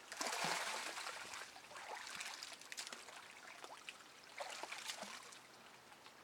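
Muddy water sloshing and splashing as someone moves through it, with a louder surge of splashing just after the start and another about five seconds in, between smaller trickles and drips.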